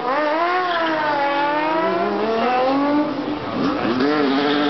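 Opel-engined sports prototype race car at full throttle. Its engine note climbs steeply, falls away slowly as the car passes, then climbs again about three and a half seconds in.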